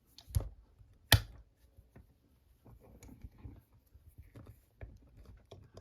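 Handling sounds as a brass padlock is set into a vise: two sharp knocks, the louder about a second in, then soft scattered clicks and rustles.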